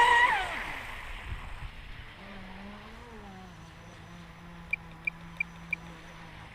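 RC boat's Rocket 3674 brushless electric motor whining as the throttle comes off, its pitch falling away, then running faintly at low speed with a low, wavering hum. Near the end come four short high-pitched pips in quick succession.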